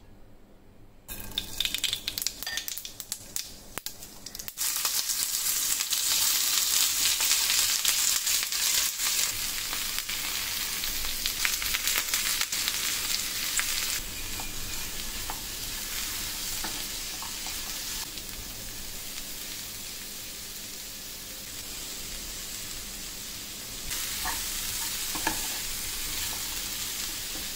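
Sliced ivy gourd frying in oil in a non-stick pan: a steady sizzle that starts softly and jumps up a few seconds in, as the slices hit the hot oil. The slices are stirred and tossed, with light clicks and scrapes over the sizzle.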